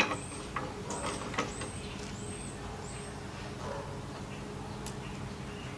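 A few light metal clicks and knocks in the first second and a half as the automatic transmission is twisted on its jack to line up with the engine's flexplate, then a steady low background hum.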